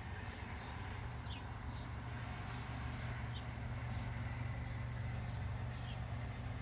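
A steady low hum of unknown origin heard from the sky, with small birds chirping now and then over it.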